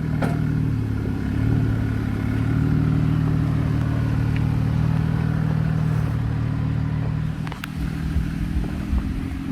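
Off-road 4x4's engine running at low revs while crawling a rock obstacle, picking up slightly about two seconds in and easing off near the end, with a few sharp knocks from the rig on the rock.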